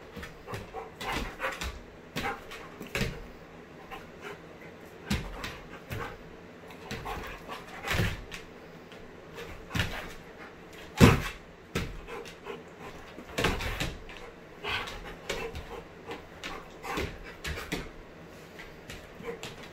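German Shepherd dog in excited rough play, making short irregular sounds throughout, with one louder sharp sound about eleven seconds in.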